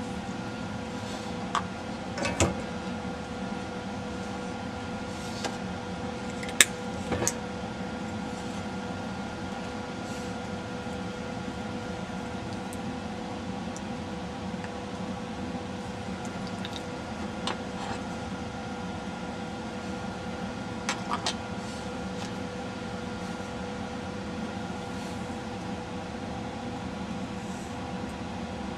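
Steady mechanical hum, like a small fan or motor, with a handful of light sharp clicks scattered through it, the sharpest about six seconds in.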